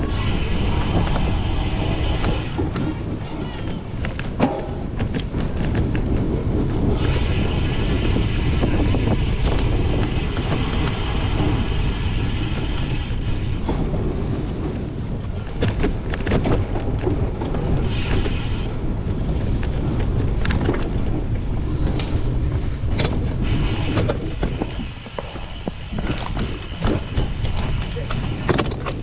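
Wind rush and road rumble from a cyclocross bike racing over rough course ground, with frequent short knocks and rattles of the bike over bumps.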